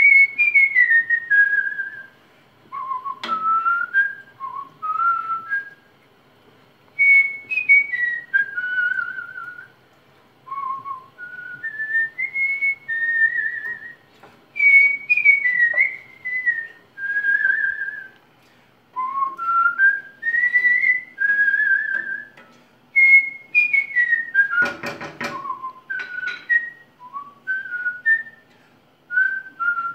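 A man whistling a melody in short phrases with pauses between them. A brief clatter cuts in about three-quarters of the way through.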